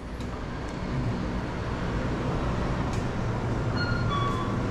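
Steady city street traffic noise: a low rumble of passing vehicles, with a few short, high-pitched chirps near the end.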